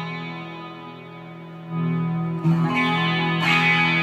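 Custom KH-1 electric guitar played through an amp on its back pickup with the volume rolled back a little: held chords ring and fade, then a louder chord is struck about two seconds in and more follow.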